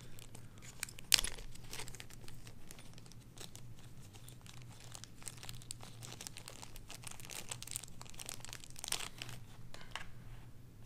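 Small clear plastic parts bag crinkling as it is handled, with scattered light clicks and taps of small metal parts and a hex key; one sharper click about a second in is the loudest sound.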